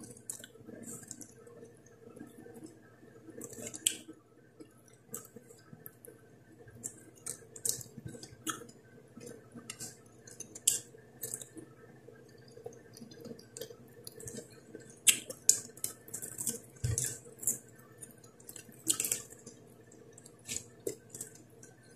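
Close-up eating sounds: wet lip smacks, chewing and finger licking as fried fish and steamed carrot are eaten by hand, in scattered short clicks over a faint steady hum.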